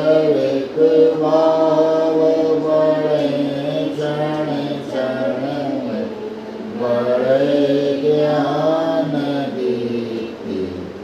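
Voices singing a devotional chant in long, held phrases, with a short dip about six seconds in and another near the end.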